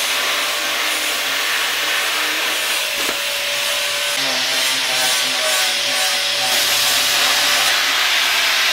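Handheld plasma cutter fitted with fine-cut consumables, cutting sheet metal: a steady, loud hiss from the arc and its air jet.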